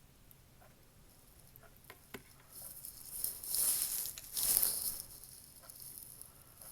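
Stretch-release adhesive pull tab under an iPhone 6s Plus battery being pulled and peeled away. A few light clicks come first, then a hissing peel that swells twice in the middle.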